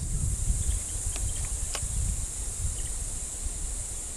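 Steady high-pitched insect chorus, with a low rumble underneath and a couple of faint clicks about one and two seconds in.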